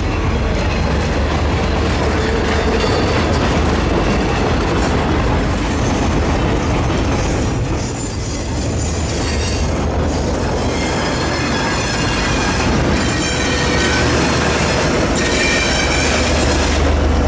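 Short freight train rolling along behind a diesel switcher locomotive, with a steady low rumble and steel wheels squealing against the rails at times, most in the second half.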